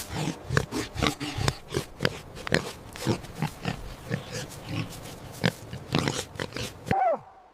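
Pig grunting in quick, irregular short grunts, with a brief falling squeal near the end.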